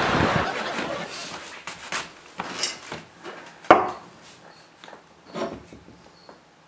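Objects being handled and set down on a table: a few scattered knocks and clinks, the sharpest about three and a half seconds in.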